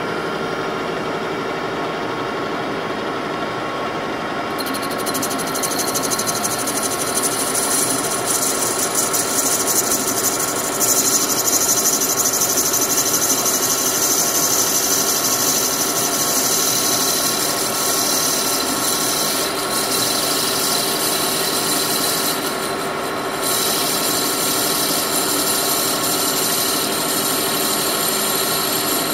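Metal lathe running with a steady whine while a parting tool cuts into a spinning aluminium tube. About five seconds in, a high squeal of the cut joins it. The squeal drops out briefly near the end, then resumes.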